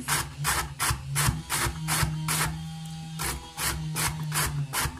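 A carrot being grated by hand on a metal box grater: rasping strokes about three a second, with a pause of about a second midway before the strokes resume.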